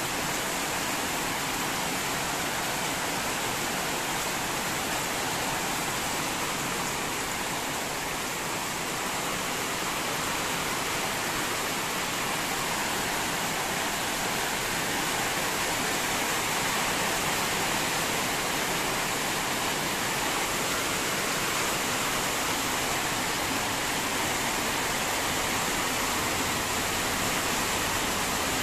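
Heavy rain pouring down with a steady, even hiss.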